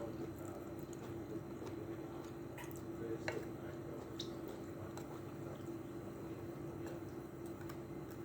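Close-miked eating of noodles: soft wet chewing and squishing with a few sharp mouth clicks, over a steady low hum.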